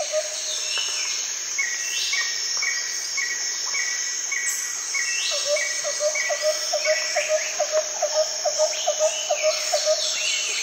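Birds calling over a steady high insect chirring. A short high note repeats about twice a second, and about halfway through a lower chirping series of three or four notes a second joins in.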